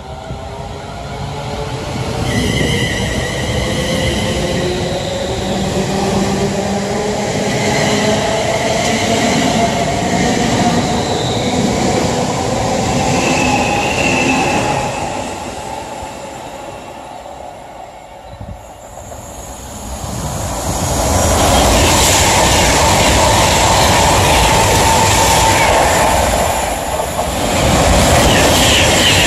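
A London Midland Class 350 electric multiple unit runs through the platform with an electric whine slowly rising in pitch and brief high wheel squeals, dying away after about 16 seconds. From about 20 seconds in, a Virgin Class 390 Pendolino passes at speed: a loud, steady rush of air and wheel noise.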